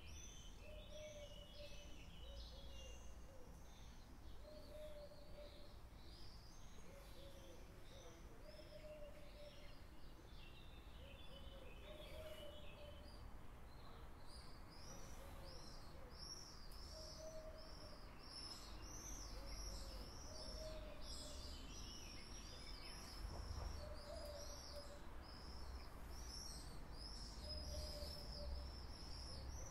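Wild birds chirping and singing, with quick high chirps that grow busier and louder in the second half and a lower short call repeating every second or two, over a faint low rumble.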